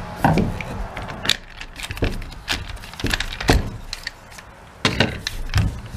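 Irregular clicks and knocks of hard plastic as the clamshell housing of a Milwaukee corded angle grinder is handled and pulled apart after its screws are out.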